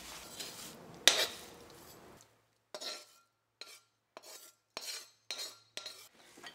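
Metal spoon scraping and clinking against steel pans as onions fried in ghee are spooned onto cooked rice. One sharp clink about a second in, then a string of light scrapes and taps, some with a faint metallic ring.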